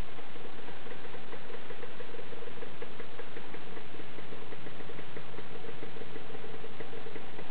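Suzuki TS125N's single-cylinder two-stroke engine idling steadily, a fast ticking over an even drone.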